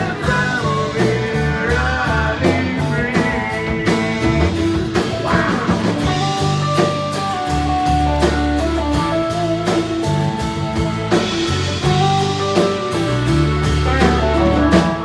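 Live country band playing an instrumental break: fiddle taking the lead over strummed acoustic guitar, electric guitar and drums, with a male voice singing briefly at the start.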